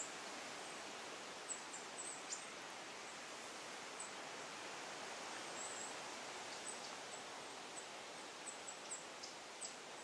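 Faint, steady forest-ambience hiss with many short, very high-pitched chirps or ticks scattered through it, a few in quick succession about a second and a half to two and a half seconds in and again near the end.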